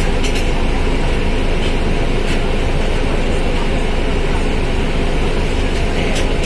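Volkswagen Volksbus 17.230 OD bus engine running steadily under way, with road noise and a few light rattles.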